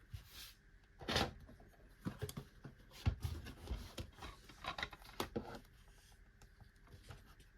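DVD cases and their packaging being handled: an irregular string of clicks, knocks and rustles, which stops about five and a half seconds in.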